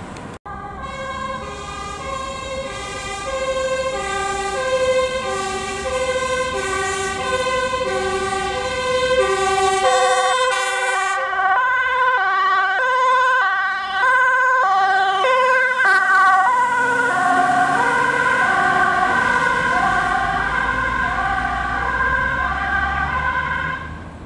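Ambulance's two-tone air-horn siren sounding continuously, alternating a high and a low note, on an urgent run. It grows louder toward the middle as the ambulance comes close.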